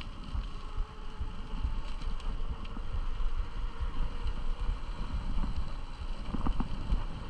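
Wind buffeting the microphone during a fast, brakeless ride downhill, with a continuous rushing rumble of motion.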